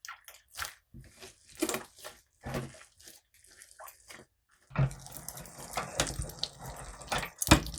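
Sticky slime being squished and kneaded by hand, making wet squelches and small pops. A few separate squishes come first, then from a little past halfway a denser run of crackling squelches.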